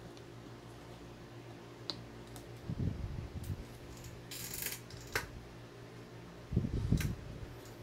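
Rotary pen tattoo machine humming steadily while shading, with small handling sounds: a few clicks, a short hiss about halfway through as the skin is wiped, and low thumps around three seconds in and again near the end.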